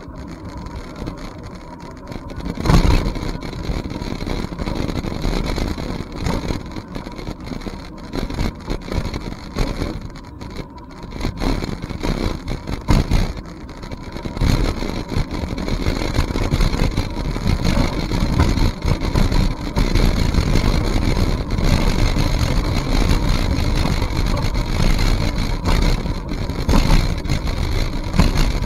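Wind buffeting the microphone while riding a bicycle, heard as a low, uneven rumble with a few knocks.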